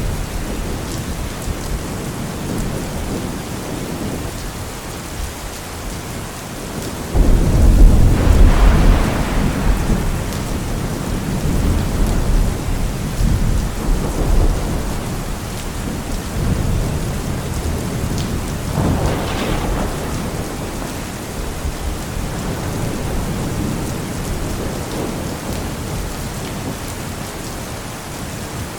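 Steady heavy rain with rolling thunder. A loud rumble of thunder breaks in suddenly about seven seconds in, and further, weaker rolls come around the middle and about two-thirds of the way through.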